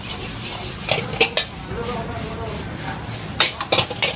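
Steel ladle stirring and scraping fried rice around a wok, with sharp metal clacks where it strikes the pan: a few about a second in and a quick cluster near the end.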